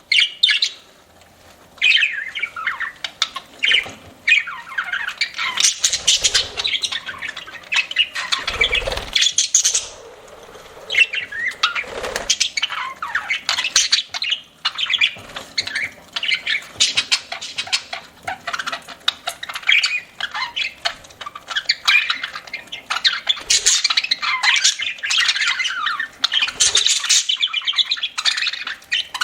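Budgerigars chattering and squawking almost without pause, a rapid stream of short, scratchy chirps, with a brief lull near the start. A soft low thump about nine seconds in.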